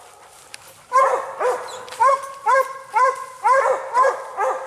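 Bear-hunting hound barking treed at a black bear up a tree: a sharp rising-and-falling bark repeated about twice a second from about a second in, the steady bark that signals the bear is treed.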